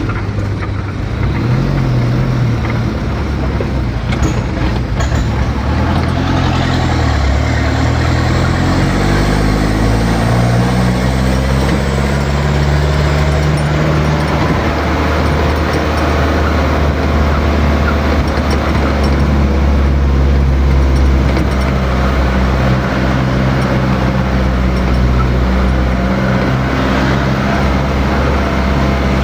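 A motor vehicle's engine pulling away, its pitch climbing over several seconds as it speeds up, then running at a steady drone.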